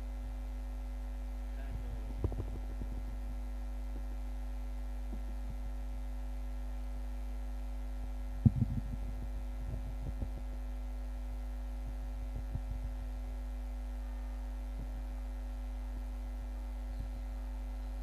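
Steady electrical mains hum from the sound system, with a few short knocks, the loudest about eight and a half seconds in.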